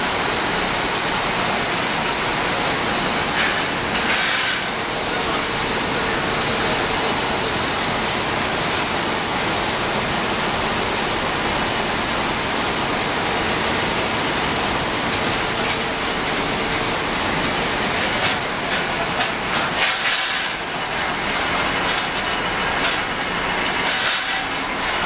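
Textile loop steamer running normally: a steady loud hissing machine noise, with a faint hum partway through and some light rattling near the end.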